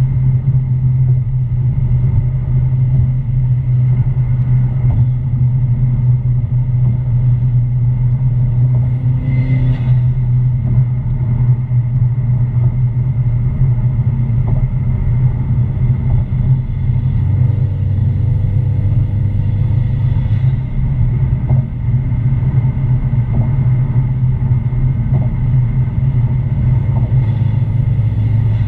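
Ford Mustang EcoBoost running with a steady low drone and a faint steady high tone above it; the drone drops lower for a few seconds about two-thirds of the way through. This is the weird noise the owner is recording from the car.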